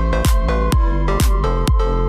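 Electronic dance music with a steady kick drum beat, about two beats a second, over held synth notes.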